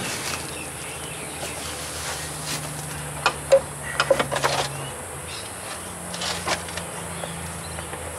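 Steady high-pitched insect drone, with a few sharp clicks and knocks from hands working on the tractor's battery and engine-bay parts: a cluster about three to four and a half seconds in and one more near six and a half seconds.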